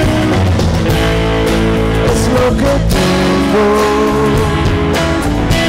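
Live rock band playing an instrumental passage with no singing: a guitar holding and sliding between long sustained notes over electric bass and a drum kit.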